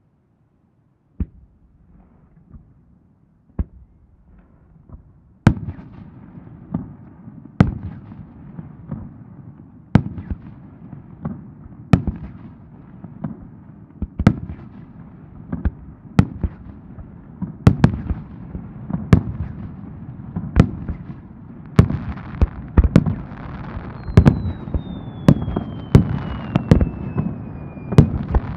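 Aerial fireworks bursting: a few scattered bangs, then a rapid barrage of loud booms over a continuous rumble and crackle that grows denser toward the end. A thin falling whistle runs for a few seconds near the end.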